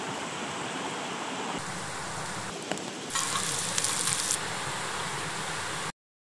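Wood fire in a small steel fire pit sizzling and crackling steadily, with a sharp pop a little before three seconds and louder, denser crackling a second later; it cuts off suddenly near the end.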